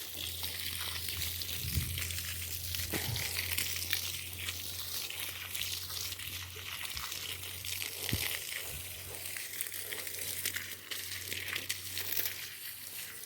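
Water pouring from a garden hose onto soil and plants: a steady hiss with scattered crackling splashes and a few soft knocks.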